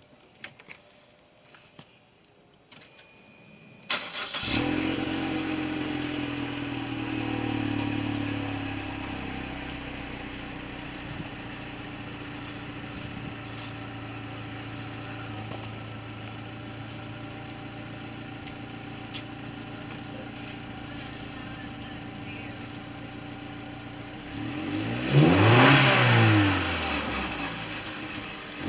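2014 Chevy Sonic's 1.4-litre turbocharged four-cylinder, fitted with a ZZP aftermarket downpipe, starts about four seconds in, idles high and then settles to a steady idle. Near the end it is revved, with a quick rise and fall in pitch.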